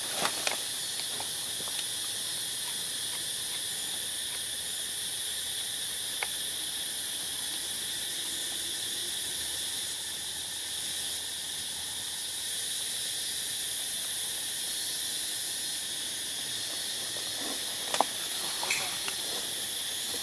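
Steady high-pitched insect chorus, with a few short sharp clicks, the loudest one near the end.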